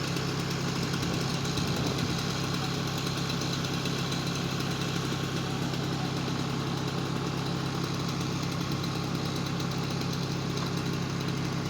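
Engine of a grapple-equipped machine idling steadily with a low, even hum.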